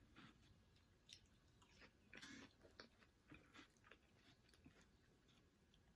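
A person chewing food close to the microphone: faint, irregular wet clicks and smacks, the loudest about two seconds in.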